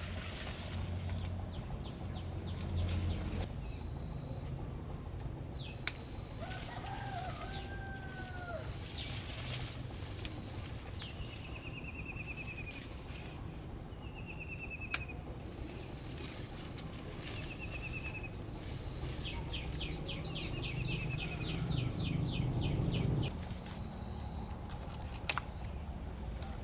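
Outdoor farm ambience: a steady high-pitched insect whine, several short trilled bird calls, and a rapid run of chirps about twenty seconds in, with a few sharp clicks.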